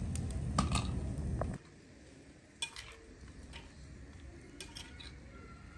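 A wood bonfire burns with a steady rush and a few sharp crackles, then stops abruptly about a second and a half in. After that, metal dishes and utensils give a few quiet clinks.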